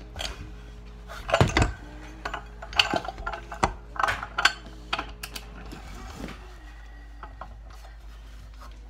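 Metal hand tools clinking and clanking against a snowmobile engine's clutch as it is worked loose: a string of sharp metallic knocks and clinks, dying down to a few small ticks after about six seconds.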